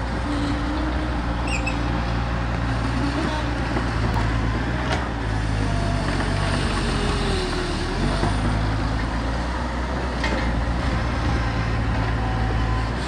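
Bobcat skid-steer loader working as it digs a hole: its engine runs steadily, with a wavering hydraulic tone above it and a few faint knocks.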